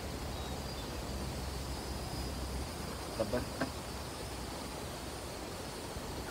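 Open-field ambience: a faint steady high insect chorus, with a low rumble that drops away a little over two seconds in, and a brief snatch of voice about halfway.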